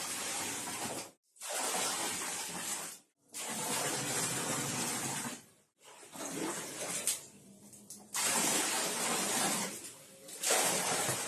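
Water pouring into a bucket in a series of runs, each a second or two long, stopping abruptly between them.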